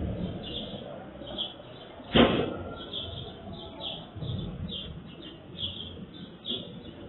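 Small birds chirping over and over, short high chirps about every half second. About two seconds in there is a single sharp knock, the loudest sound.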